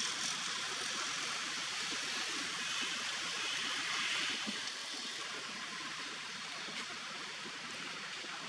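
Steady outdoor hiss of forest ambience, high-pitched and even, swelling slightly near the middle, with no distinct calls or knocks.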